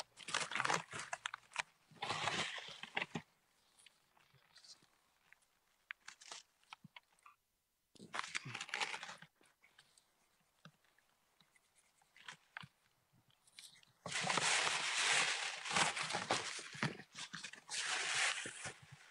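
Bursts of crunching, rustling noise with scattered clicks in between: a short burst near the start, another around the middle, and the longest and loudest near the end.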